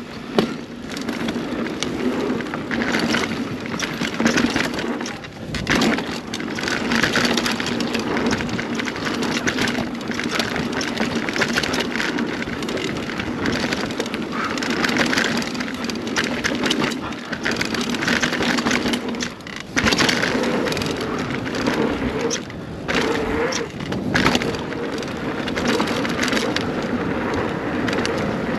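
A 2021 Scott Spark 970 full-suspension mountain bike riding down a dirt trail, heard from the bike: a constant rush of tyres on dirt, a steady hum, and many sharp knocks and rattles over bumps and roots, with a few short lulls.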